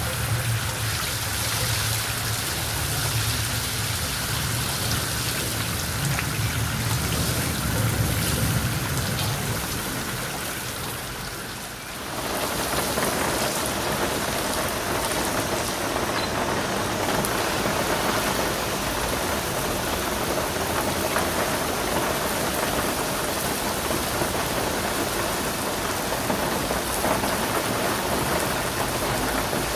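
Steady rain falling, with a low rumble under the first part. About ten seconds in it fades down, and a second, denser rain recording starts about twelve seconds in.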